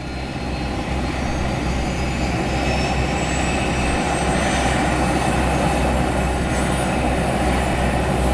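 Airplane engine noise: a steady, full rumble with a faint high whine that rises slowly in pitch, cutting off suddenly at the end.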